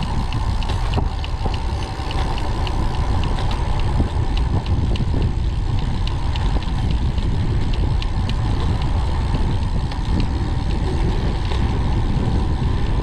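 Wind rushing over the camera microphone on a road bike descending a steep mountain road at speed: a steady, loud, low rush with faint ticking over it.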